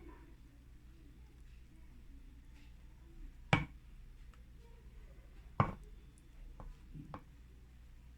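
A few sharp knocks of a kitchen utensil against cookware while béchamel sauce is poured over a dish. Two loud knocks come a couple of seconds apart, then two lighter ones close together, over a faint steady hum.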